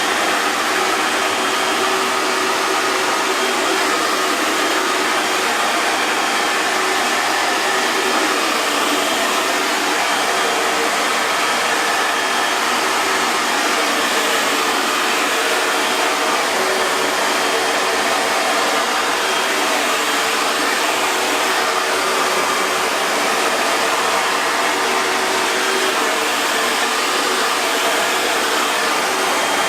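Hair dryer blowing continuously: a steady, even rush of airflow over a fan motor's hum, with no change in speed or level.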